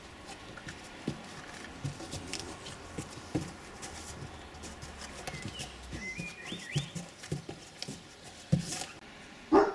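Irish Wolfhound puppies playing on and around a cardboard box: scattered light knocks and scuffles, with small bird chirps in the middle, and a dog barking loudly twice near the end.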